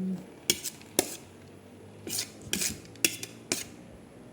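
Eating utensils clinking and scraping against a dish during a meal: about six sharp clinks spread over a few seconds, some followed by a short scrape.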